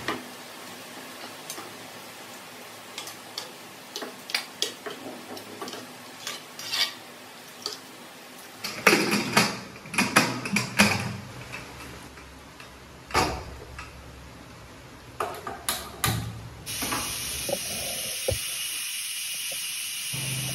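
Spoon stirring and tapping inside an aluminium pressure cooker in light scattered clicks, then a loud clatter of metal knocks as the lid is fitted and locked on, with a few more single knocks. Near the end a steady high hiss starts.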